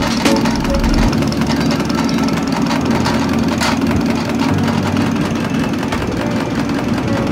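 Diesel injection pump test bench running and driving a Denso four-cylinder rotary injection pump: a steady mechanical hum, with a sharp click just after the start and another about three and a half seconds in.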